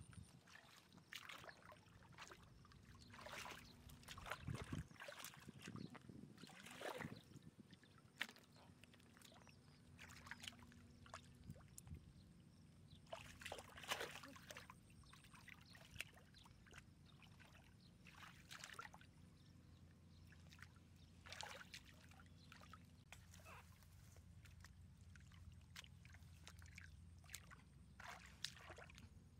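Faint, irregular splashing and sloshing of shallow muddy water as a person wades and gropes through it by hand for fish.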